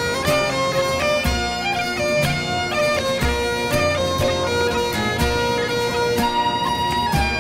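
Instrumental break in a Scottish folk song: bagpipes playing the melody in sustained notes over deep bass notes, with no singing.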